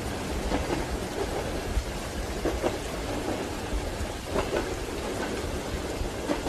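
Steady rain over a low rumble, with a train's wheels knocking over rail joints in soft double beats about every two seconds.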